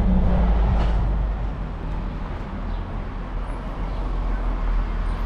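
Road traffic: a motor vehicle passing close by with a low engine hum, loudest in the first second or so and then fading into a steady low traffic rumble.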